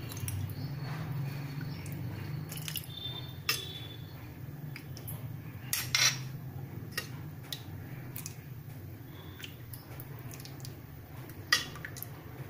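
Steel ladle clinking and scraping against a metal cooking pan and a ceramic bowl as thick soup is ladled out, with a few sharp clinks, the loudest about halfway through and near the end, over a steady low hum.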